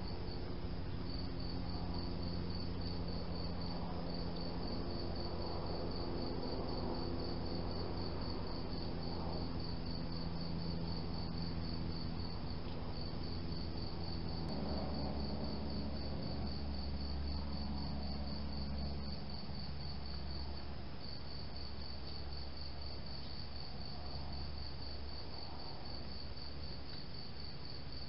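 Crickets chirping in a fast, even pulse train, with a low steady hum underneath that shifts about halfway through.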